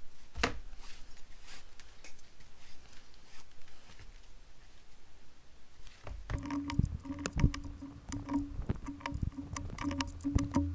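Leather being hand-stitched: thread pulled through the punched holes, with soft rustles and small clicks. About six seconds in, music with a bass line and a repeating beat comes in under the stitching sounds.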